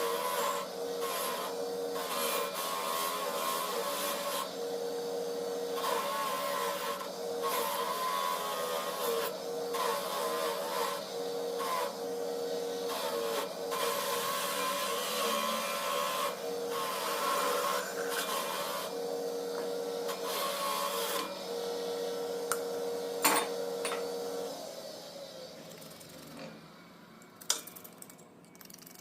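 A small motor running steadily under repeated scraping strokes, each a second or so long, that start and stop irregularly. About 25 s in the motor winds down with a falling tone, and a couple of sharp clicks follow.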